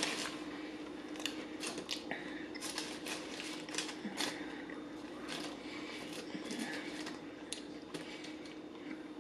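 Close-up eating sounds: chewing, and a hand picking at a burger on its crinkly foil wrapper, a scattered run of short clicks and crackles over a faint steady hum.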